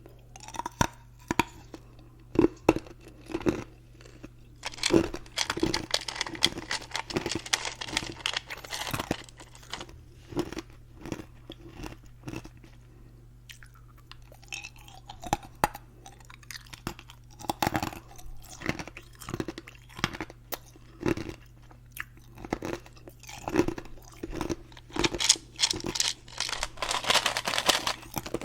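Ice being bitten and chewed close to the microphone: sharp, separate crunches, with two longer spells of rapid crunching, about five seconds in and near the end.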